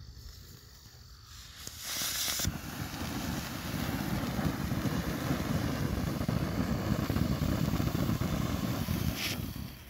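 Phantom Fireworks "Night Terror" ground fountain igniting about two seconds in with a sharp hiss, then spraying sparks with a steady, not too loud rushing hiss that drops away shortly before the end.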